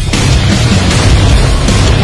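Loud, aggressive background music laid over the footage.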